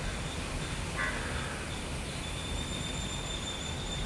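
Slow, controlled ujjayi exhalation through the left nostril with the throat engaged, heard as a soft, even hiss.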